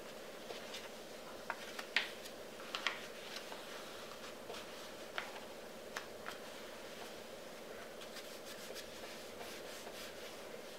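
A sheet of origami paper being folded and its creases pressed down by hand on a cloth-covered table: faint, scattered crinkles and soft taps, with a low steady hum underneath.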